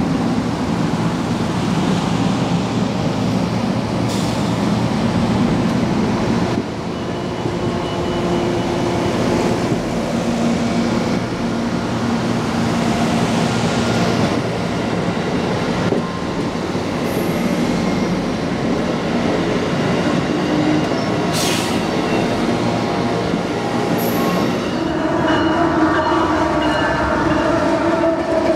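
Amtrak Amfleet passenger coaches rolling slowly past: a steady rumble of steel wheels on rail, with thin, faint wheel squeals now and then. Near the end a CSX freight diesel locomotive comes by with a stronger engine hum.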